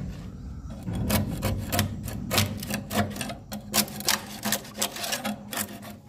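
Metal chisel scraping and prying a swiftlet nest off a wooden plank: a run of irregular scrapes and clicks, several a second, starting about a second in.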